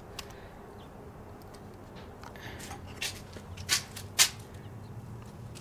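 Quiet room tone with a low steady hum and a few light clicks and knocks about three to four seconds in.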